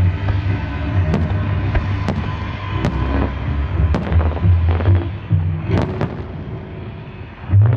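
Aerial firework shells bursting in a string of sharp bangs, about one a second, over music with a strong bass.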